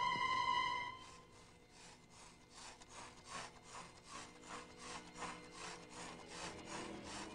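A steady electronic tone that stops about a second in, followed by a rhythmic rasping scrape, about three strokes a second, like sawing.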